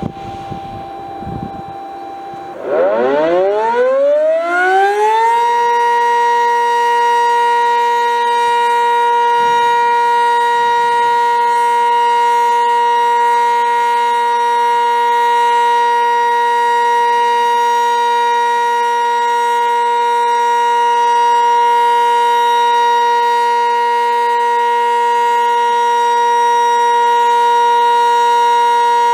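Sentry 15V2T outdoor warning siren starting up about two and a half seconds in, its pitch rising for a few seconds as the rotor comes up to speed, then holding a loud, steady tone: the Alert signal of a monthly siren test.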